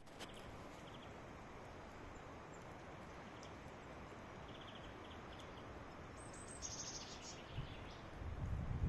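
Faint birdsong outdoors: scattered short chirps and trills over a steady breezy hiss, the trills getting louder after about six seconds. A low rumble, like wind on the microphone, builds near the end.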